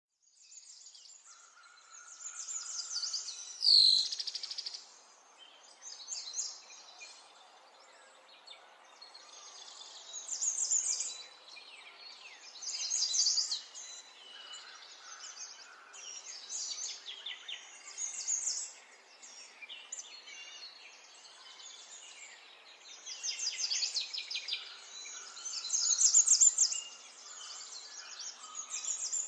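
Birds chirping and singing in rapid trills, in bursts every few seconds, with a sharp click and a short falling whistle about four seconds in.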